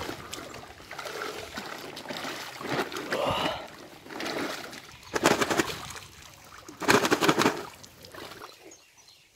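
Water splashing and sloshing as a large fish thrashes while men wading in shallow water grab it by hand. There are two louder bursts of splashing, about five and seven seconds in.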